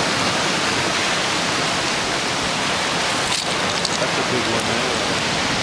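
Ocean surf breaking over rocks and washing through the channels between them: a steady, unbroken rush of white water.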